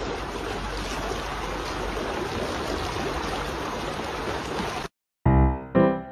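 A fountain water jet gushing and splashing in a steady rush as a dog bites at it. The rush cuts off suddenly about five seconds in, and a short piano tune with separate struck notes starts near the end.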